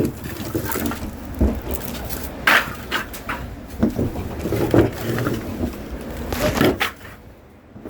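Split firewood logs knocking and clattering against each other as they are handled, in irregular knocks of differing loudness.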